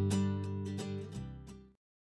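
Background music with a steady strummed beat, fading out and stopping about three-quarters of the way through.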